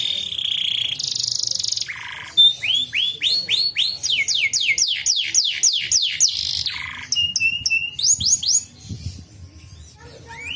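Domestic canary singing: a fast rolling trill opens the phrase, followed by a long run of quick repeated whistled notes sweeping in pitch, about three or four a second. The song softens for a moment near the end, then a new phrase begins.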